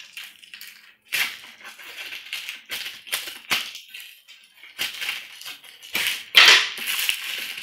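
Scissors cutting and working at the plastic wrapping on a cardboard box: irregular crinkling rustles and small snips and clicks. A louder clack comes about six and a half seconds in, as the scissors are set down on the table.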